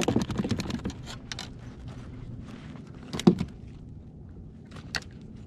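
Handling noises on a plastic fishing kayak: a clatter of quick knocks and rattles in the first second, then one sharp knock about three seconds in and a lighter one near the end.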